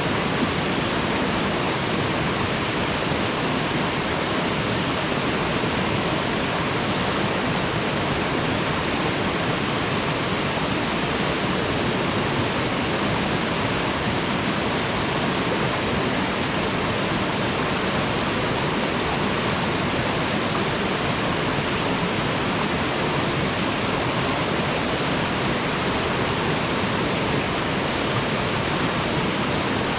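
Waterfall: water falling and splashing with a steady, even rush.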